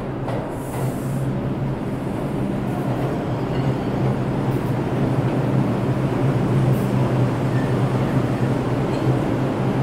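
New York City IRT subway train running into an underground station and passing close by, a steady rumble of wheels and motors that grows slowly louder as it nears.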